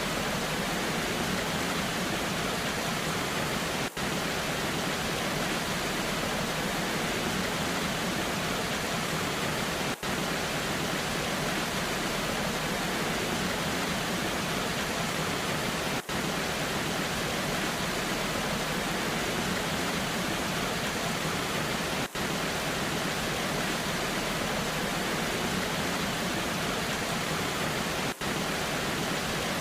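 Waterfall rushing steadily in the rain: an even, continuous wash of falling water, broken by a brief dip in level about every six seconds.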